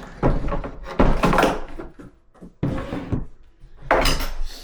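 Several thunks and knocks of furniture panels being handled and set down, in three separate bouts.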